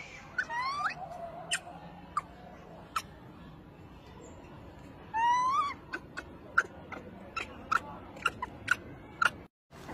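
Infant macaque crying: two rising, wavering cries, one about half a second in and a louder one around five seconds in, amid scattered sharp clicks.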